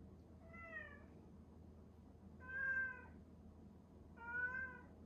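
Domestic cat meowing three times, a second or two apart. The first meow is fainter and falls in pitch; the last two are louder and longer.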